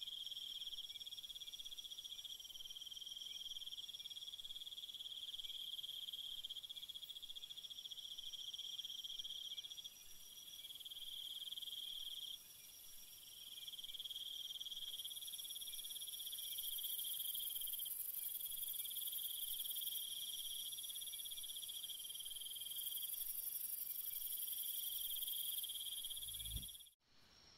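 Chorus of insects trilling steadily at several high pitches, one very high trill joining about halfway through. Near the end the sound cuts off abruptly after a brief low thump.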